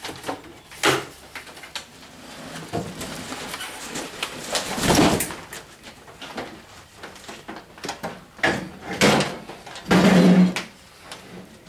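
A heavy steel tool cart being lifted and tilted out of its cardboard box and styrofoam packing: knocks and thumps, with loud stretches of scraping and rustling of cardboard and foam.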